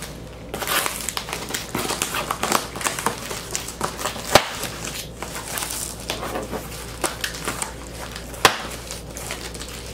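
A cardboard record mailer's brown paper and plastic wrapping being handled and torn open by hand: irregular crinkling and crackling, with two sharp louder clicks, one about halfway through and one near the end.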